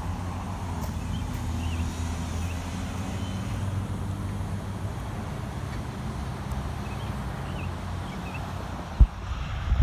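Low, steady engine rumble of road traffic, with one sharp thump about nine seconds in.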